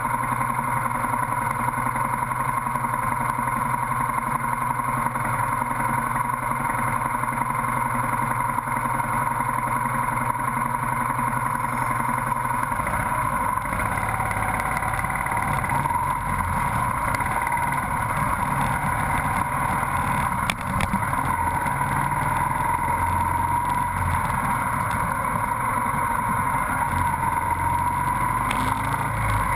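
Motorcycle engine running, first waiting in traffic and then riding off, heard from a rear-mounted camera. A steady hum runs throughout, and the low rumble grows heavier about halfway through.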